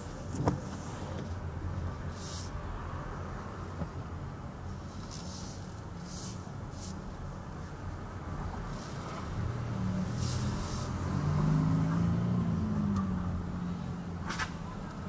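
Car driving in city traffic as picked up by a dashboard camera: steady engine and road rumble, with short hisses of passing traffic. About ten seconds in, a louder engine note swells for a few seconds and then eases.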